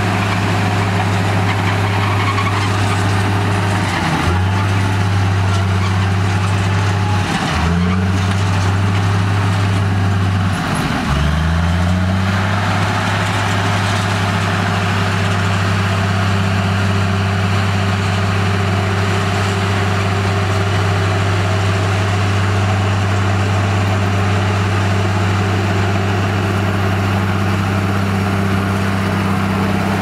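Crawler bulldozer's diesel engine running steadily while pushing sand. Its pitch drops briefly and recovers three times, about four, seven and eleven seconds in.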